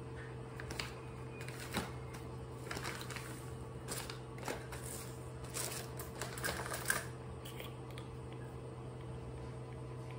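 Handling noises: scattered light clicks and short rustles, bunched between about half a second and seven seconds in, over a steady low hum.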